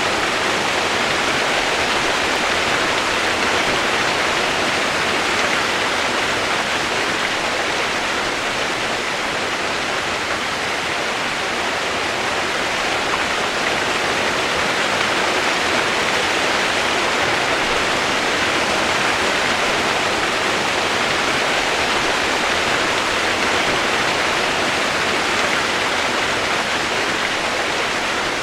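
Running water rushing steadily, an even hiss with no change in level.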